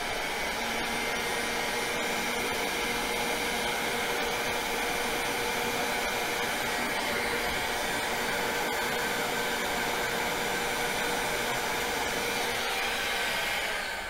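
Electric heat gun blowing steadily, then switched off near the end and dying away.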